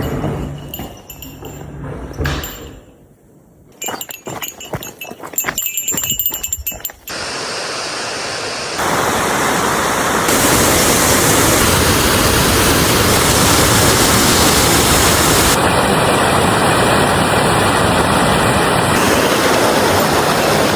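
Scattered footsteps and knocks on rocky ground for about seven seconds, then a steady, loud rush of flowing water that starts abruptly and grows louder twice in quick succession.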